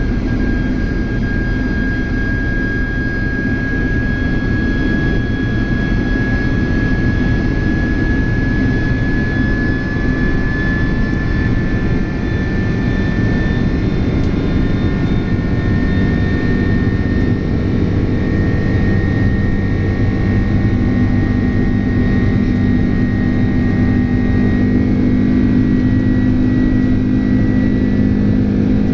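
General Electric CF6 turbofan engines of a Boeing 767 running steadily in flight: a dense roar with a whine that slowly rises in pitch, and a low hum that grows stronger near the end.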